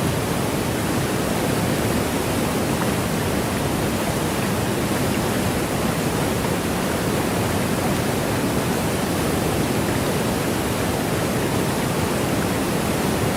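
Niagara's Bridal Veil Falls crashing down close by in a loud, steady roar of water.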